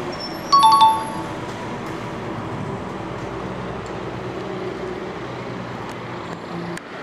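A two-note ding-dong chime about half a second in, high note then lower note, ringing briefly, over a steady background hum of passing traffic.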